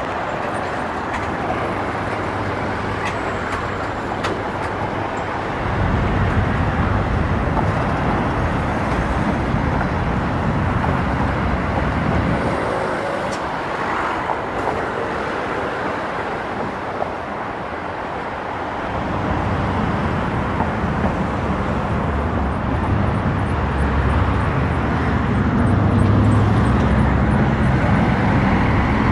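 A car being driven on a road: steady road and engine noise, with a deeper rumble that swells about six seconds in, eases off about twelve seconds in, and builds again from about nineteen seconds.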